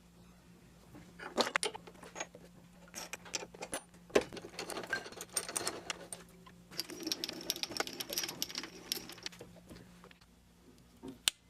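Metal tooling on a mini milling machine being handled: irregular clicks, knocks and short rattles, with a faint steady hum underneath and a single sharp click near the end.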